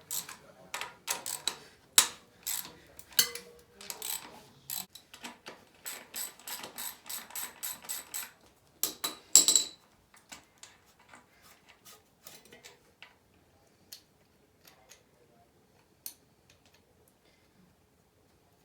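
Socket ratchet clicking in quick runs as bolts are worked loose. The clicking ends just before halfway through with a louder burst, after which only a few faint ticks are left.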